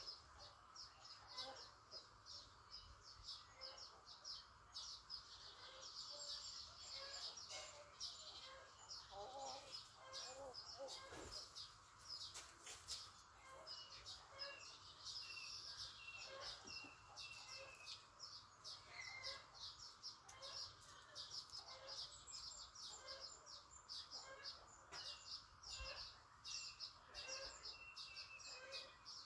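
Faint, continuous chorus of small birds chirping: many quick high chirps with some short falling whistled notes, over a steady hiss.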